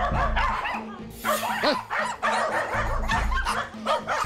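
Several Bichon Frises barking and yapping in quick succession, a threat display aimed at strangers, over background music with a steady bass.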